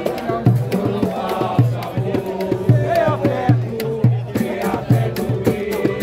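Live samba from a roda de samba. A low surdo-type drum keeps a steady pulse about twice a second under the jingles of pandeiros and a cavaquinho, with a group of voices singing together.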